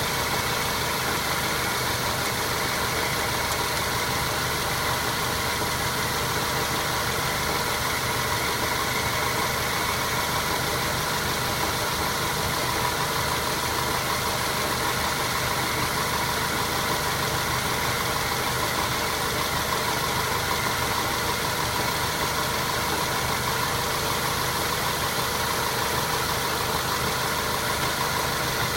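Mazda 3 with automatic transmission running steadily, carrying the knock that the owner traces to the automatic gearbox. The knock shows when the car coasts, goes away under throttle, and is heard plainly from underneath the car.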